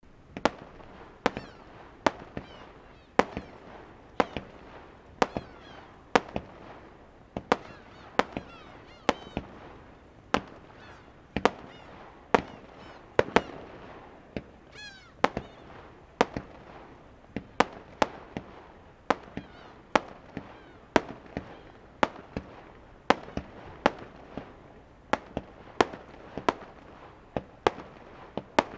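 Aerial firework shells bursting one after another, about one sharp bang a second with now and then two close together, each followed by a trailing echo.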